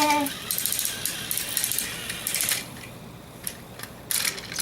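Battery-powered toy train motors and plastic gears running in a fast clicking rattle that thins to scattered clicks after about two and a half seconds. The engines are straining against each other in a tug of war.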